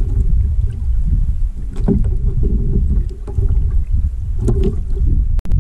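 Low steady rumble and water sloshing around a small wooden boat at sea, with a couple of short splashes from a hooked fish held at the surface beside the hull.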